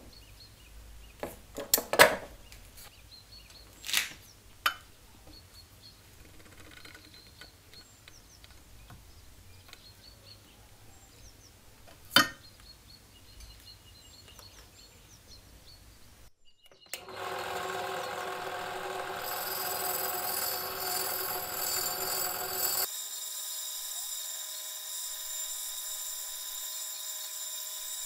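A few sharp clicks of steel pliers working the tabs of a copper ashtray. From about 17 s in, a drill press runs steadily with a wire wheel buffing the copper, its tone shifting around 23 s.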